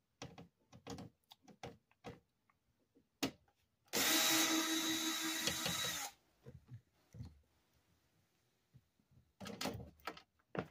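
Cordless drill running steadily for about two seconds with a motor whine as it backs a screw out of a TV's circuit-board mounting. Short clicks and knocks of handling the tool and parts come before and after it.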